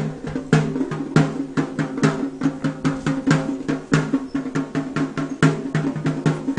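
Fast, steady drumming: several pitched drum strokes a second in a continuous rhythm.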